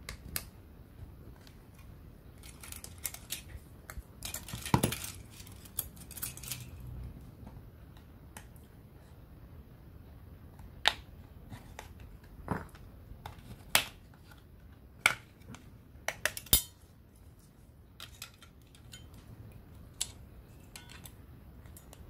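Hard plastic case of a TV remote control being pried open at its seam: scraping and creaking in the first few seconds, then a run of sharp clicks and snaps as the case's clips let go one by one.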